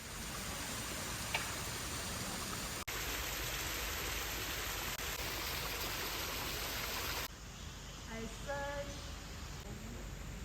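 Steady, even rushing noise of the outdoors, stepping in level at two abrupt cuts about three and seven seconds in. A faint, brief distant voice is heard near the end.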